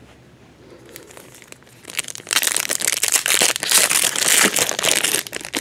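Foil wrapper of a baseball card pack crinkling loudly as it is torn open and handled, starting about two seconds in and lasting about three seconds.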